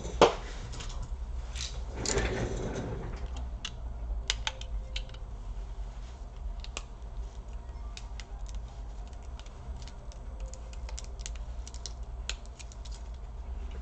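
Scattered light clicks and taps of small hard parts being handled on a workbench, with a sharp click right at the start and a brief rustle about two seconds in, over a steady low hum.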